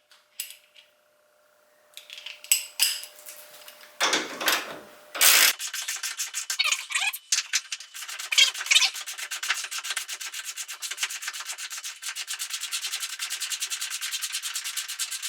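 A ratcheting wrench clicking fast and steadily as it backs off the rear shock's top mounting nut, after a few clanks and scrapes of metal tools in the first seconds.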